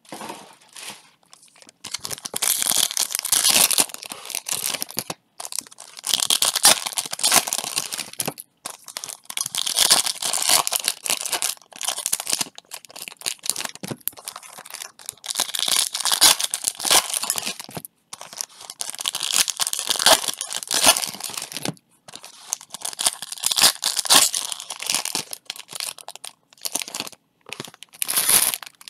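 Foil wrappers of baseball card packs being torn open and crinkled, in repeated bursts of ripping and rustling separated by brief pauses.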